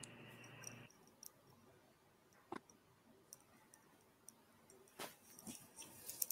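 Near silence with a few faint, scattered clicks that come more often near the end.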